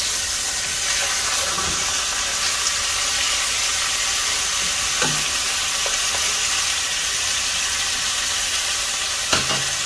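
Pork rib pieces sizzling steadily as they fry in hot oil in a pot, while a wooden spoon turns them, knocking against the pan about five seconds in and again near the end.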